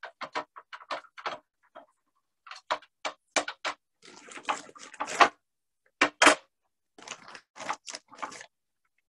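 Flat stones and pebbles clicking and knocking on a glass tabletop as they are set down and shifted by hand, with a plastic zip-top bag crinkling as a hand rummages in it.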